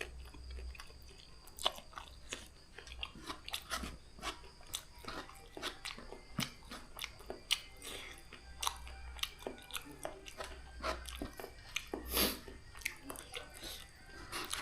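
Close-up eating sounds of a person chewing and slurping noodles, with many small irregular wet smacks and clicks of the mouth.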